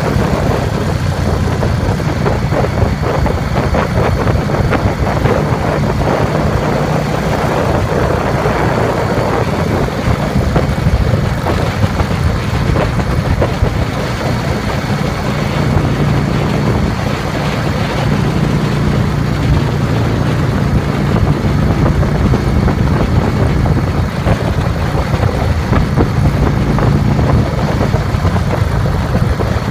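Motorcycle engine running steadily at cruising speed, heard from the moving bike itself, with wind and road noise over it.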